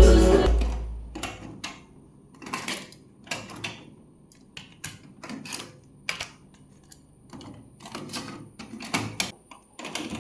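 Music fades out in the first second, then a run of irregular sharp clicks and light knocks, with a faint steady high whine underneath.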